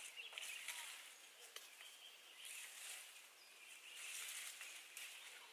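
Faint rustling of cherry-tree leaves and twigs in a few short spells as cherries are pulled off by hand, with a couple of light snaps, over quiet rural outdoor ambience.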